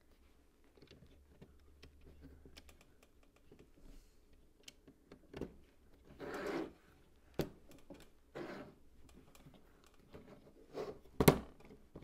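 LEGO plastic parts clicking and rattling as the typewriter's platen-roller carriage assembly is handled and fitted onto the body, with two short scraping slides of plastic on plastic. Near the end, as the assembly is pressed down into place, comes one sharp click.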